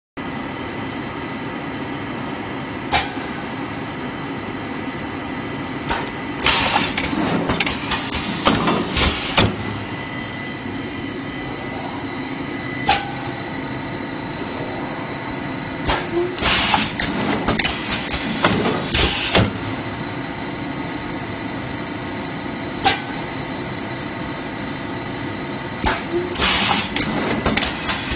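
Hand-fed PET blow molding machine running with a steady hum and whine. A sharp click comes about every ten seconds, and each is followed a few seconds later by a cluster of loud short bursts of noise, on the same repeating machine cycle.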